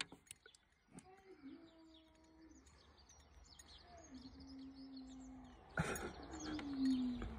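A baby cooing softly: three drawn-out coos, each held on one pitch with a slight slide, about a second in, around the middle and near the end, with faint rustling from the baby being held toward the end.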